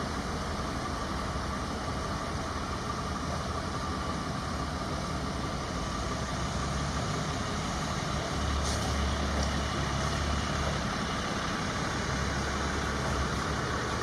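A heavy engine running with a steady low rumble under a constant hiss of outdoor street noise; the rumble swells for a couple of seconds about nine seconds in.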